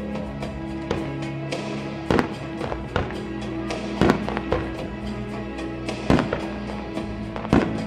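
Aerial fireworks shells bursting in sharp bangs, the loudest about every two seconds, over music with steady held tones.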